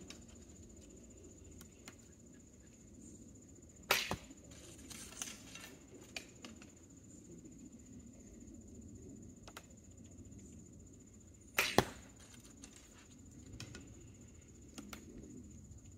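Two bow shots, about four seconds in and near twelve seconds in: each a sharp snap of the bowstring quickly followed by a second knock, with soft clicks of arrows being handled and nocked in between.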